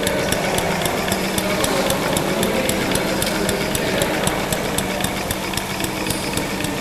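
A small engine running steadily, with a low hum and a rapid, even ticking of about five ticks a second.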